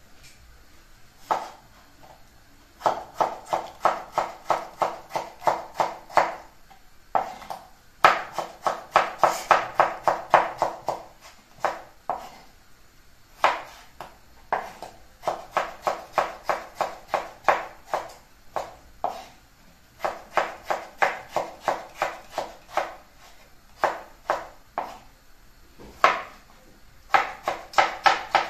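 Broad-bladed kitchen knife chopping tomatoes on a wooden cutting board: runs of quick knocks, about four a second, each with a short ring from the board, broken by short pauses.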